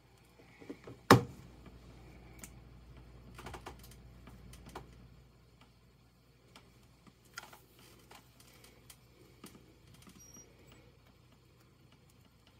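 Scattered light taps and scratches of a king snake and the rat it is constricting shifting against the floor of a cardboard box, with one sharp knock about a second in.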